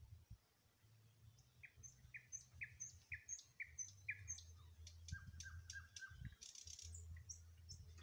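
Faint songbird song: a run of about six short, evenly spaced notes, then a lower run of about five quicker notes, with thin high calls above.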